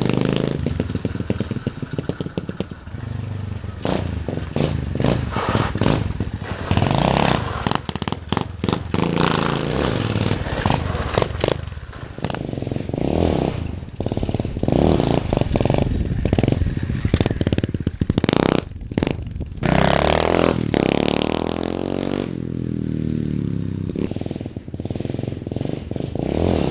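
SSR 125 pit bike's small single-cylinder four-stroke engine running and revving up and down repeatedly, its pitch rising and falling, with frequent sharp knocks and rattles. The bike has been sitting for over a year and its carburettor needs work.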